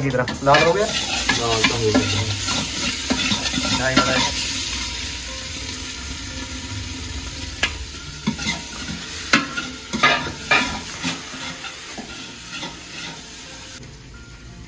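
Onion, cumin, garlic paste and chillies frying in hot oil in a metal pot, sizzling loudly at first and then fading, while a spoon stirs and scrapes against the pot, with a few sharp scrapes about two-thirds of the way through.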